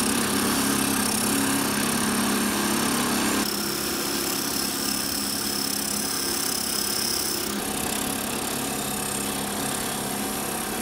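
Wood lathe running steadily while a cutting tool shaves a spinning wooden column, a steady motor hum under the hiss of the cut. The sound changes abruptly twice, about three and a half and seven and a half seconds in, with a faint high whine during the middle stretch.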